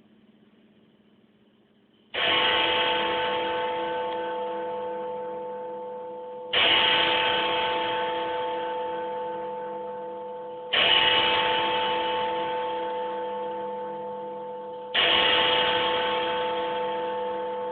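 Big Ben's great hour bell striking four times, about four seconds apart, each stroke ringing on and slowly fading until the next. The same single deep note sounds each time, as the hour bell does when it counts out the hour.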